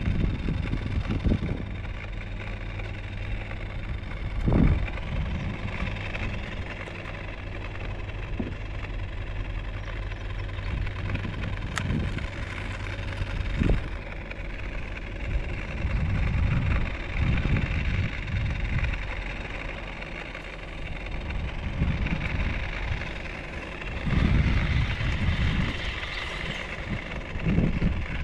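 A steady low motor hum that stops about halfway through, with a few short knocks, then gusts of wind buffeting the microphone.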